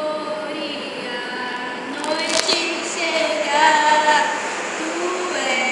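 A woman singing, holding long notes that waver slightly in pitch, with a short click about two and a half seconds in.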